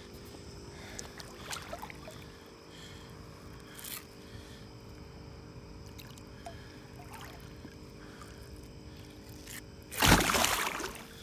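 A large blue catfish splashing loudly as it goes back into the river beside the boat, one heavy burst of water about ten seconds in that lasts around a second.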